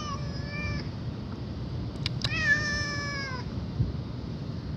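A domestic cat meowing twice. The first call ends within the first second; a longer high meow starts about two seconds in and falls slightly in pitch.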